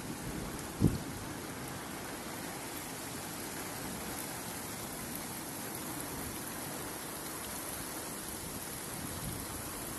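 Steady hiss of a hailstorm, hail and rain falling, with one brief low thump about a second in.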